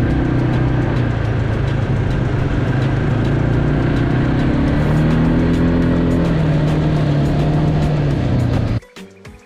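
Quad bike engine running under way, its pitch rising about five seconds in as it accelerates. It cuts off suddenly near the end, leaving quieter music.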